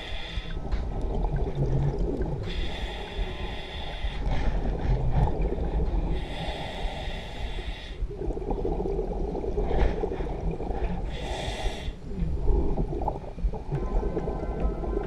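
Scuba diver breathing through a regulator underwater: a hissing inhalation every few seconds, three of them, each followed by a rush of bubbling exhaled air.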